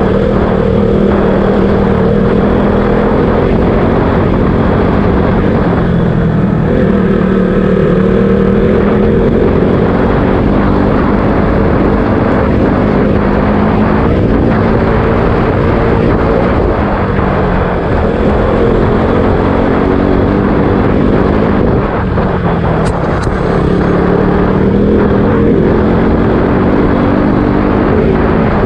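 KTM RC 200's single-cylinder engine running under way, its note rising and falling with the throttle, over steady wind rumble on the camera microphone.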